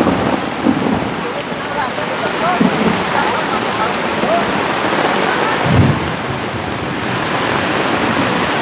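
Heavy typhoon rain pouring down steadily, with a brief low thump a little past the middle.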